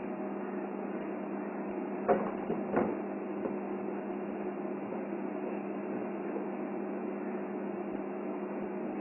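Steady low electrical hum, with two brief knocks a little after two seconds in.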